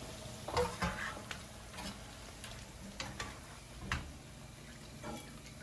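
Metal kitchen utensils clicking and tapping against a pan several times, over a light sizzle of tortilla chips frying in oil.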